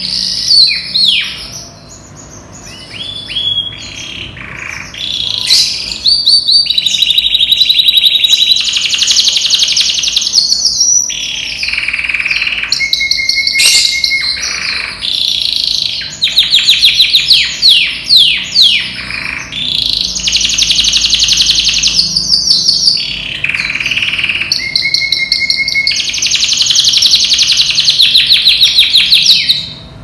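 A yellow domestic canary of European stock sings a long, varied song, switching between rapid rolling trills and runs of fast repeated notes with brief pauses between phrases. The bird is in full song condition. The song is sparse for the first few seconds, then runs almost without break until it stops just before the end.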